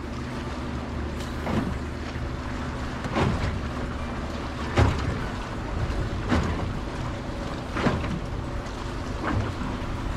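Water slapping against the hull of a small aluminium boat in six short knocks about every second and a half, the loudest about five seconds in, over a steady low motor hum and wind on the microphone.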